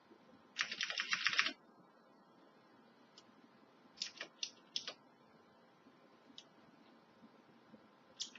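Mechanical keyboard keys being typed on: a fast run of clicking keystrokes lasting about a second, then scattered single keystrokes and a few short groups.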